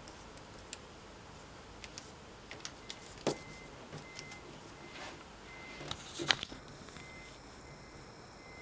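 Origami paper rustling and crinkling as fingers press and smooth a folded piece flat, with scattered short clicks and taps, the sharpest about three and six seconds in.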